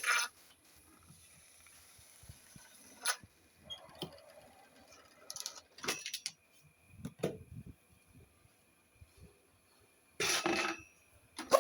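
Scattered short scrapes, clicks and knocks of tools and a bucket being handled and scraped, with a longer scrape a little after ten seconds in; no machine is heard running.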